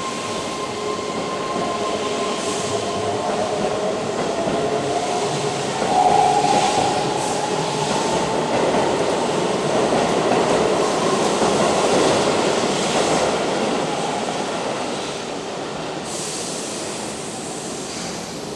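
Keihan 6000 series electric train pulling in and braking to a stop, with wheels rumbling on the rails and a motor whine that shifts in pitch. There is some wheel squeal on the curved track. It is loudest in the middle and eases off as the train slows.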